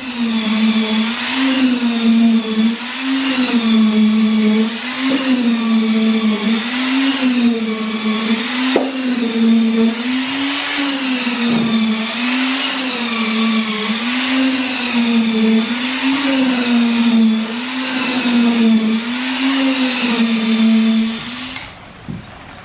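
Concrete mixer running with a batch of concrete churning in the drum. Its hum wavers in pitch in a regular cycle a little over once a second, and the mixer stops near the end.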